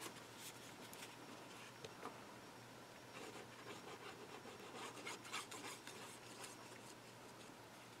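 Faint rubbing and rustling of cardstock as a folded paper box is handled and glue is run onto it from a squeeze bottle, with scattered light ticks, a few together about five seconds in.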